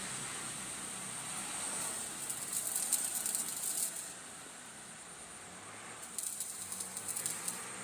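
Welding arc crackling and hissing in two spells, each a second and a half to two seconds long, over a steady high hiss.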